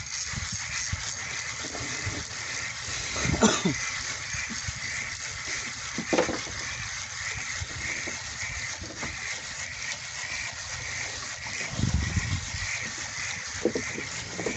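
Steady wind and water noise on a small fishing boat, with a faint rhythmic whirr pulsing about twice a second and a few dull knocks.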